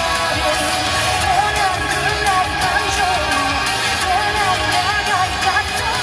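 Recorded pop song played back as dance music, with a sung melody over a steady beat.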